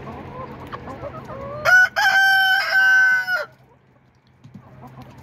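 Rooster crowing once: a short opening note, then a long held call lasting about a second and a half. Hens cluck softly before it.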